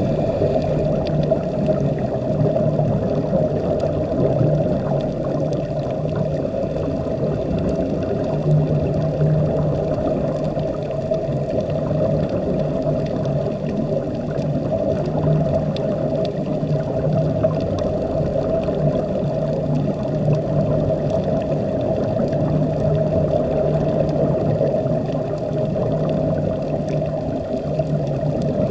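Steady, muffled underwater rushing noise with a constant low hum, as machinery noise carries through the water to a submerged camera.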